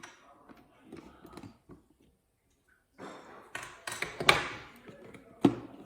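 Clicks, taps and light knocks of small plastic and metal parts being handled as a motherboard's stock plastic CPU cooler mounting bracket is taken off. A short quiet pause about two seconds in, then a busier run of clicks with one sharp knock.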